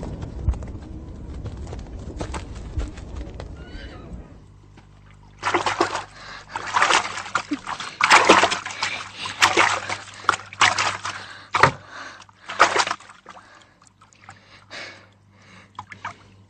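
Water splashing and sloshing in a wooden bathtub as someone bathes, in repeated loud irregular bursts starting about five seconds in and thinning out near the end. Before that, a low steady rumble with a few scattered clicks.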